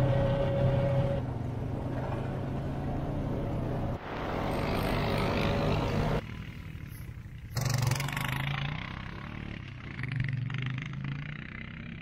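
Honda ATV engine running steadily as it is ridden, with a low hum and a haze of wind and road noise. The sound changes abruptly about four and six seconds in and again halfway through, then goes on quieter.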